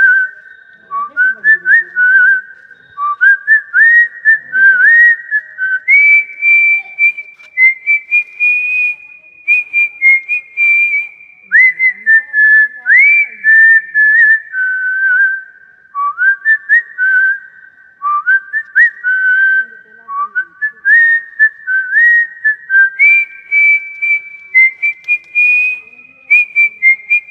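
A melody whistled in clear single notes, many of them scooping up into pitch, the tune running through its phrase and then repeating.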